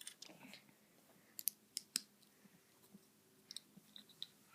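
Small plastic Lego pieces being handled and turned around, giving faint, irregular light clicks and taps.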